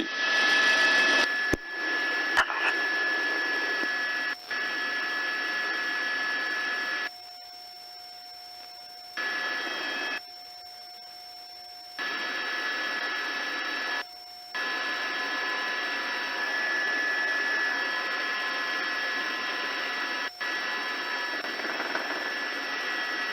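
Hiss of an open police radio channel with steady tones running through it, with no voice on it. It drops out twice for a couple of seconds, leaving a single faint steady tone.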